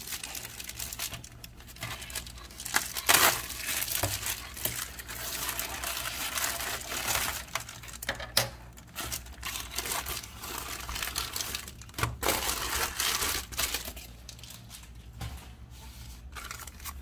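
Plastic padded mailer being pulled open and rummaged through, crinkling and rustling irregularly with several sharp crackles. Near the end, a wallet's clear plastic wrapper crinkles as it is handled.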